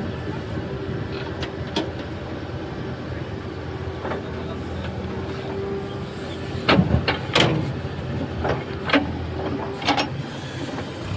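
Heavy diesel machinery engine running steadily. From about six to ten seconds in, a cluster of sharp knocks and clanks sounds over it.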